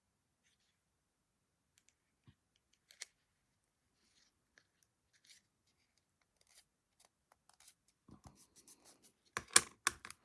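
Small objects being handled on a craft table: scattered faint ticks and scrapes, then a busier run of clicks and rustles from about eight seconds in, loudest just before the end.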